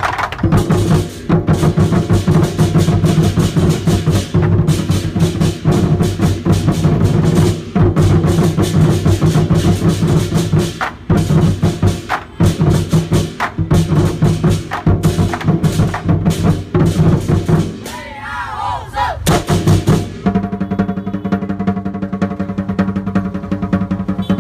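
Lion dance drumming: rapid, loud drum and cymbal strikes over a steady pitched backing. About 20 seconds in, the strikes stop and steady instrumental music takes over.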